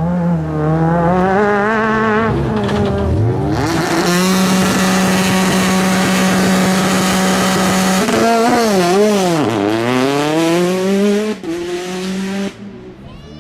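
Rally car engine working hard at high revs. Its pitch swings up and down with throttle and gear changes, holds one steady note for about four seconds in the middle, then drops, climbs again and dies away near the end.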